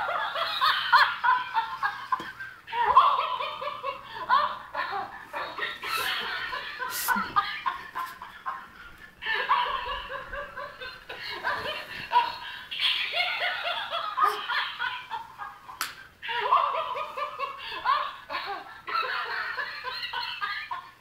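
Plush laughing-monkey toy playing its recorded laugh over and over, in bursts of a few seconds with short breaks between them, along with a few sharp clicks.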